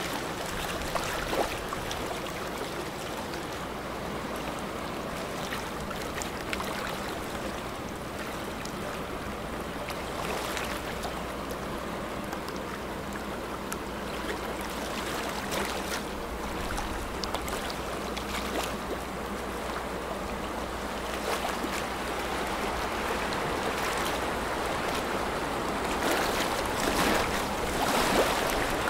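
Bow wave of a fast-moving container ship rushing and splashing against the hull, over a steady low hum, growing louder near the end.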